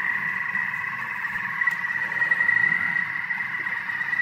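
Thermomix TM6 food processor running at low speed while heating at 120 °C: a steady machine whine over a low hum.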